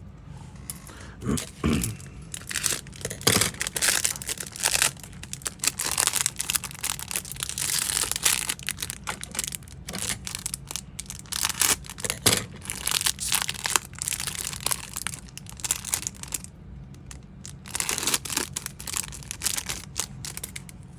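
Lure packaging crinkling and rustling in irregular bursts as it is handled and opened.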